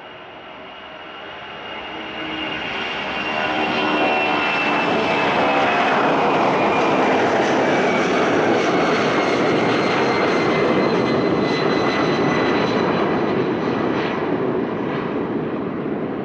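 Boeing C-17 Globemaster III's four turbofan engines at takeoff power, passing close. The jet noise builds quickly over the first few seconds into a loud, steady rush, and a whine above it slowly drops in pitch as the aircraft goes by.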